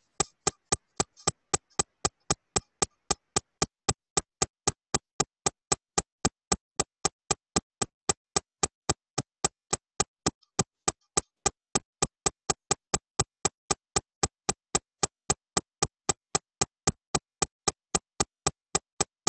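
Steady train of short, sharp clicks, about four a second and evenly spaced, coming through a participant's open microphone on a video call. It is an unwanted noise on that participant's line, which the host calls a problem with 'ruiditos' (little noises).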